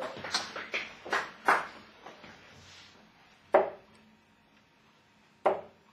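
Steel-tip darts striking a Winmau bristle dartboard: two sharp thuds about two seconds apart, in the second half. Before them comes a cluster of knocks and handling noises.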